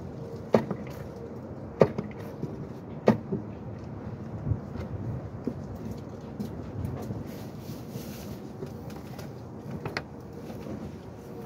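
A few sharp knocks, three of them about a second and a quarter apart near the start and another near the end, over a steady background hiss.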